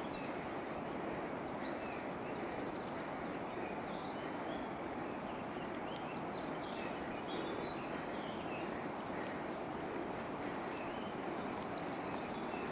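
Forest ambience: small birds chirping over a steady rushing background noise, with a fast high trill partway through.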